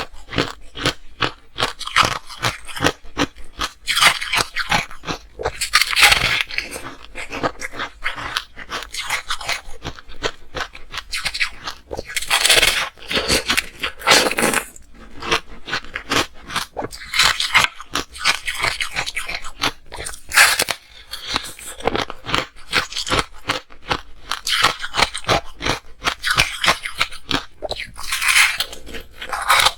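Ice being bitten and chewed close to the microphone: a continuous run of sharp crunches and cracks, with louder bursts of crunching every few seconds as fresh bites are taken.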